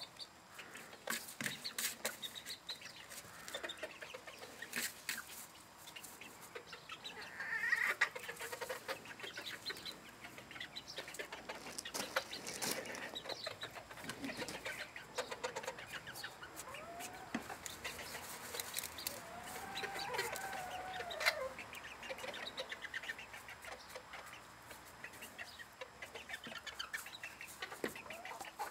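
Bantam hens clucking and giving short calls, with many small clicks and rustles of scratching and pecking in loose soil.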